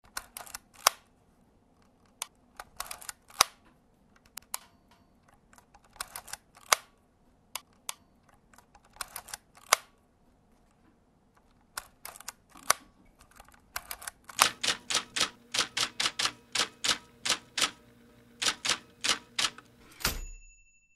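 Typewriter keys clacking in irregular bursts, then a quick, even run of keystrokes about 14 seconds in, ending with a brief ring near the end.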